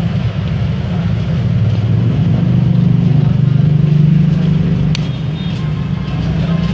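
A motor vehicle engine running steadily with a low, even rumble, with one sharp click about five seconds in.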